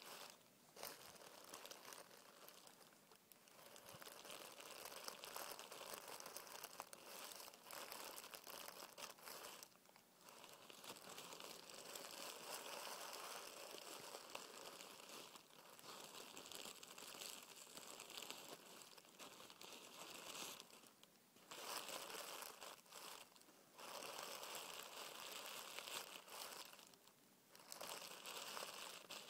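Faint, continuous crinkling of tissue paper rubbed and scrunched under fingertips, with several brief pauses.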